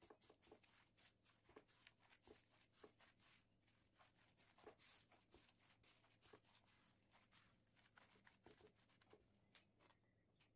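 Near silence with faint, irregular small clicks and rustles of handling.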